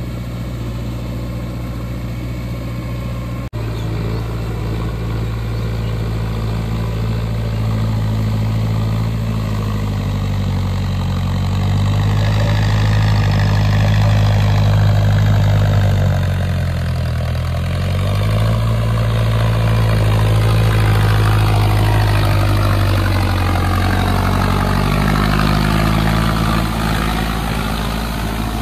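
Mahindra tractor's diesel engine running steadily under load while working a rotavator through a flooded paddy field (puddling). The engine pitch sags briefly about two-thirds of the way through, then recovers.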